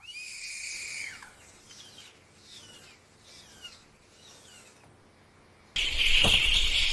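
Kitten mewing: one long high-pitched meow that holds and then falls, followed by four fainter, shorter falling mews. A much louder steady hissing noise cuts in suddenly near the end.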